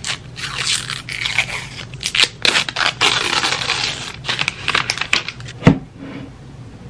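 Protective wrap being peeled and torn off a square power adapter, a scratchy, crinkly tearing with small handling clicks. A single sharp knock near the end as the laptop is handled.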